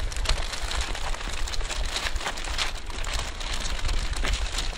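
Close, irregular crackling and rustling, like crinkled plastic wrap or handled material, over a steady wind rumble on the microphone.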